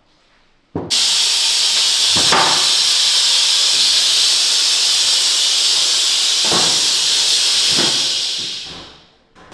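A jet of air or gas hissing loudly and steadily; it starts abruptly about a second in, runs for about seven seconds with a few faint knocks, then fades out.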